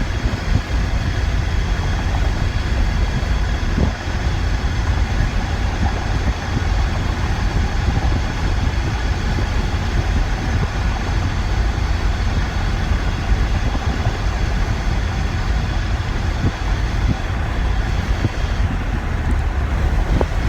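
Steady driving noise inside the cab of a Ford Ranger pickup with its rear window missing: engine, tyre and wind noise with a heavy low rumble, even throughout.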